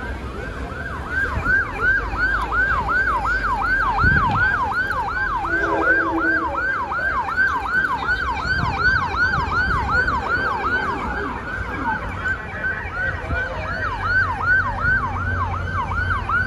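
Police vehicle's electronic siren in a fast yelp, its pitch sweeping up and down about three times a second, with a low engine rumble underneath.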